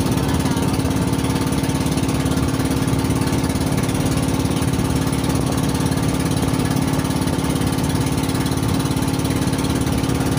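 Small boat engine running steadily with a constant, even drone, heard close from on board the boat.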